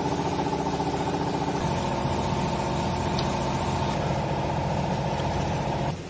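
Vertical hydraulic baler's electric motor and hydraulic pump running with a steady hum, its tone shifting slightly about one and a half seconds in.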